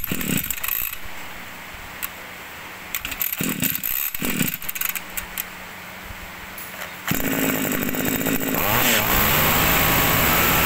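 Topsun Pro two-stroke brush cutter being started: a few short handling and starter-pull noises, then the engine catches about seven seconds in and runs, revving up and down.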